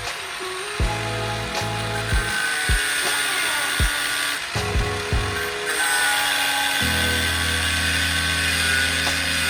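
Background music with a steady beat and held synth-like notes.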